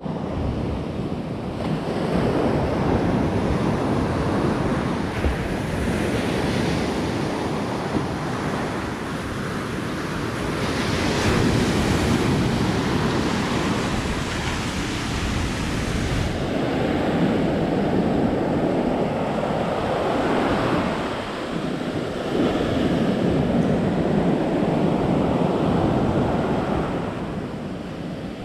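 Waves breaking and washing up on a sandy beach, the surf swelling and falling back every few seconds, with wind buffeting the microphone.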